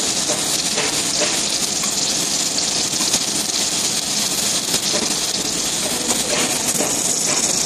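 Submerged arc welding head on a column-and-boom manipulator running a seam along a steel plate under granular flux: a steady, even, high hiss-like noise.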